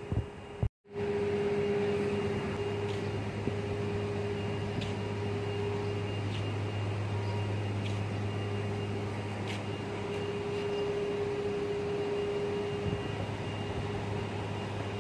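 Steady mechanical hum of running machinery, a low drone with a higher steady tone over it, starting after a brief dropout about a second in, with a few faint ticks.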